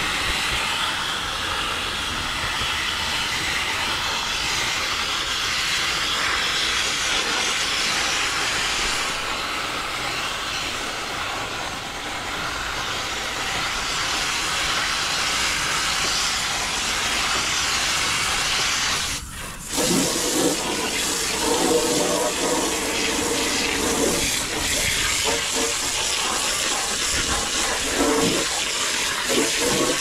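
Water spraying from a hose nozzle onto the dirt-clogged condenser coil of an old Rheem outdoor air-conditioning unit, a steady hiss of spray. It drops out briefly about two-thirds through, then comes back rougher and more splashing.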